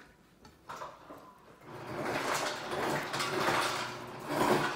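Rustling as shredded lettuce is handled and laid onto a sandwich, starting about two seconds in and going on in uneven swells.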